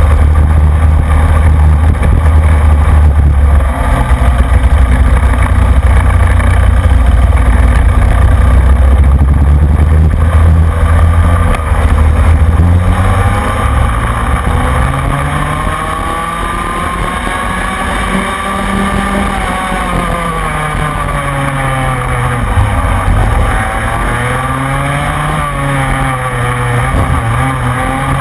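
Rotax Mini Max 125cc two-stroke kart engine at race pace, heard from on board, its pitch rising and falling with the revs through the corners. A loud low rumble dominates the first dozen seconds, after which the engine's up-and-down revving stands out clearly.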